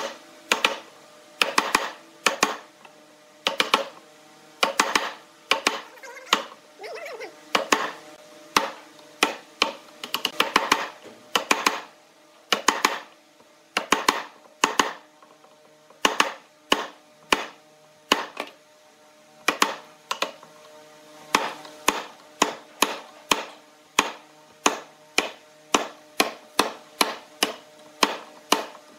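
Repeated blows driving a wood chisel to chop out a mortise in a wooden chair seat: sharp knocks about one a second, quickening to about two a second in the last third.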